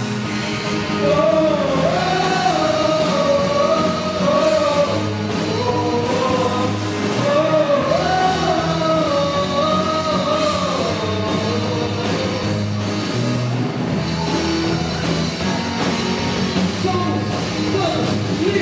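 A rock band playing a song, with a wavering sung melody over steady bass notes.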